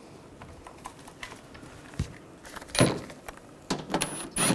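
Small handling clicks as a bolt is started by hand, then a sharp clack about three seconds in. Near the end a cordless power driver starts in short trigger bursts with a high whine as it runs the bolt into the bumper cover.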